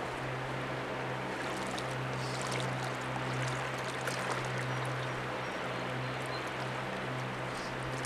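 A hooked catfish splashing and thrashing at the water's surface as it is hauled out, with water streaming off it, over a steady low hum.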